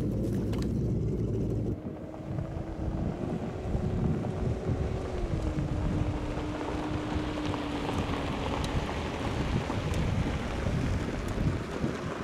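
Wind buffeting the microphone over a low motor hum. The motor's note steps up and down a few times and fades out about nine seconds in.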